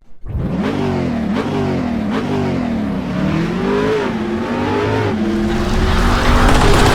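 Engine revving up and down over and over, its pitch rising and falling, growing louder toward the end.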